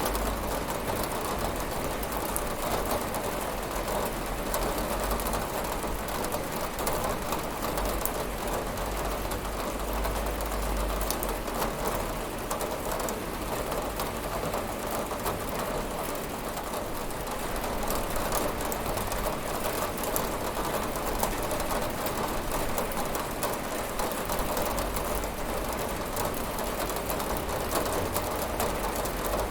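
Steady rain falling, with a constant patter of drops on a window and a low rumble underneath.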